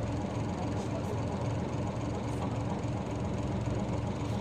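Diesel city route bus running along the road, a steady low engine drone with road noise.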